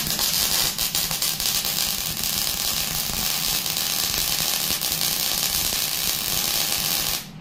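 Electric arc welding: a steady crackling sizzle of the arc laying a short tack weld on the bucket, which stops abruptly near the end.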